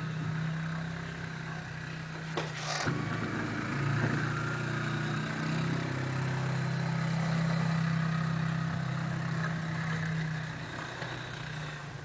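ATV (four-wheeler) engine running as the machine pushes snow with a front plow blade. Its hum rises and falls a little in pitch as the rider changes speed.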